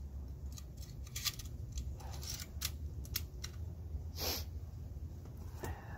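Metal clicks and rattles of an Arrow staple gun being loaded with a strip of staples, with one longer, louder rasp about four seconds in.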